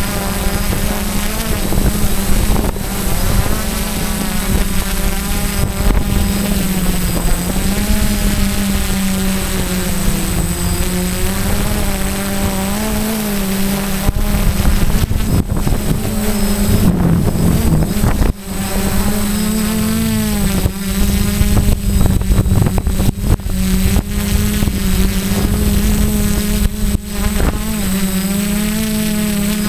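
Quadcopter's electric motors and propellers whining, heard from a camera carried on the craft, the pitch wavering up and down as the throttle changes. Rough buffeting noise runs underneath.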